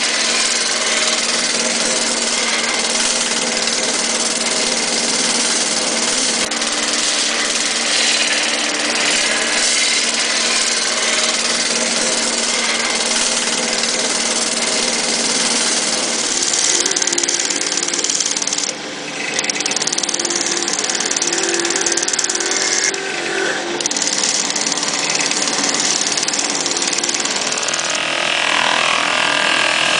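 Power sanding drum spinning on a lathe, wood pressed against the abrasive sleeve: a steady motor hum under a loud, even sanding hiss. In the second half the hiss briefly breaks off twice as the wood comes off the drum.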